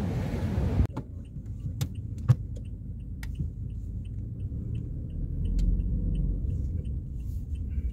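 Street noise that cuts off about a second in, giving way to the low, steady rumble of a car heard from inside its cabin while driving. Faint regular ticking about twice a second and a few sharp clicks run over the rumble.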